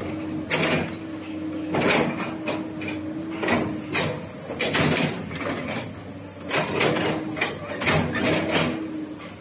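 Komatsu PC200-8 hydraulic excavator running, with a steady low tone and a high whine under irregular sharp knocks and clanks.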